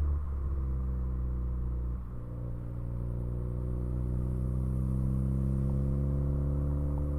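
Tuned Ford Focus ST's engine and exhaust droning steadily under light throttle, dipping briefly about two seconds in, then the pitch rising slowly as the revs climb.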